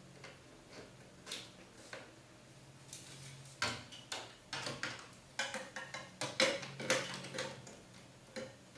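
Plastic marble-run toy parts clicking and knocking as a black plastic track section is handled and fitted into the tube framework. A few scattered clicks at first, then from about three and a half seconds in a busy, irregular run of taps and rattles.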